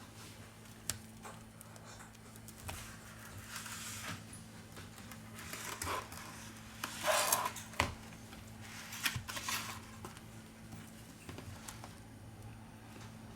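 Small opening tools clicking and scraping against an iPad's glass and frame while the glued screen is pried loose, with short tearing rustles of adhesive, the loudest about halfway through.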